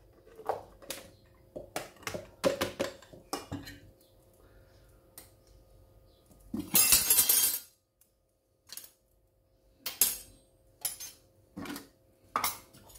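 Plastic bowls, a plastic jug and a spoon handled on a stone counter: pineapple chunks tipped into the jug, then scattered light clinks and knocks. A little over halfway through comes one loud rushing noise lasting about a second.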